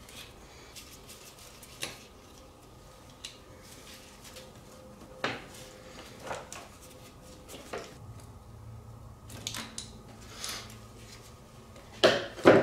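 Scattered metal clicks and knocks as a carburetor is worked loose and lifted out of an ATV's frame, with the loudest pair of knocks near the end.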